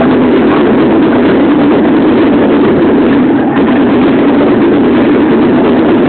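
Loud electronic dance music from a large sound system amid a dancing crowd, recorded so hot that it comes across as a steady, distorted wash of sound.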